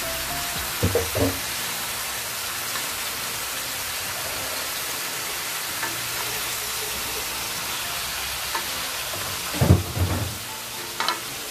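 Raw chicken pieces sizzling in hot oil in a pot, a steady hiss, with a few louder bumps about a second in and near the end.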